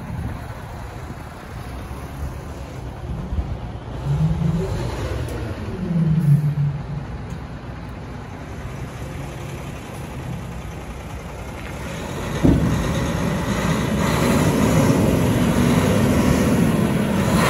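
Diesel engine of a 2011 Hino 700 8x4 tipper truck running while the tipper body is hydraulically raised. The revs rise briefly twice, then about twelve seconds in the engine steps up suddenly to a louder, steady higher speed.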